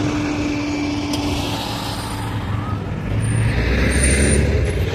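Street traffic: a motor vehicle's engine running, a low rumble that grows louder about three seconds in and eases off near the end.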